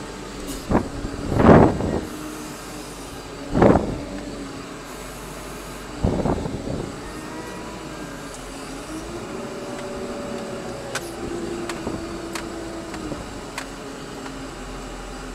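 Wheel loader's diesel engine running, heard from inside the cab, its speed rising and falling. A few loud knocks come in the first seven seconds, the loudest about a second and a half in.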